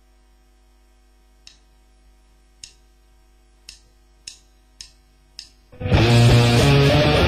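Electric guitar amplifier humming quietly, broken by six short clicks. Near the end, loud amplified electric guitar playing starts suddenly.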